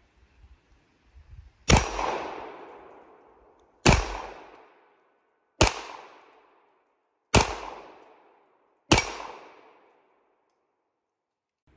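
Five single shots from a Canik TP9SFX 9mm pistol firing 115-grain rounds with no compensator fitted, spaced about a second and a half to two seconds apart. Each sharp crack trails off in echo over about a second.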